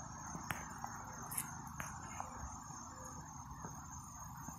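Steady high-pitched trilling of insects, with a few faint clicks in the first couple of seconds.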